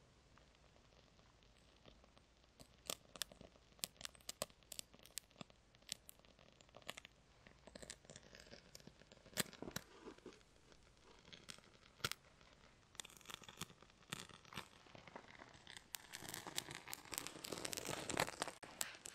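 Dry tinder and wood shavings crinkling and snapping as they are worked by hand, in scattered sharp clicks that thicken into a denser burst of crackling near the end as the bundle is pushed into the fire lay.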